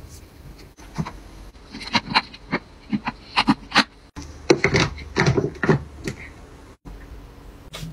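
Sharp plastic clicks and taps as a small battery-powered wall air-freshener dispenser is handled: batteries and casing are fitted, then the unit is pressed onto the wall.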